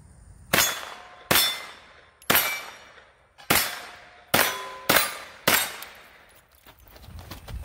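AK-pattern rifle fired seven times in irregular succession over about five seconds, each shot cracking and dying away fast. A few shots are followed by the brief ring of a struck steel target.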